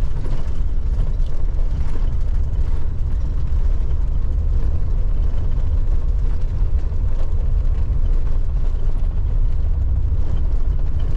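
Road noise inside a moving van's cab: a steady low rumble of engine and tyres rolling over a freshly graveled road, with faint light ticks.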